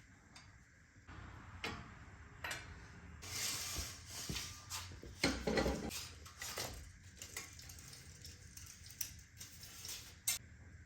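Scattered metallic clinks and clicks of hand tools and steering parts being handled. There are a couple of longer scraping rustles in the middle and a sharp click near the end.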